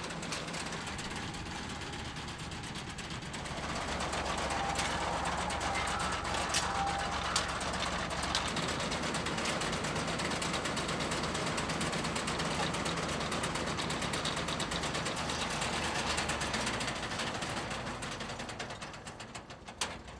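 An early prototype herb harvesting machine running in the field: a steady engine drone with the mechanical rattle of its cutter and conveyor, getting louder about four seconds in, with a few sharp clicks and fading near the end.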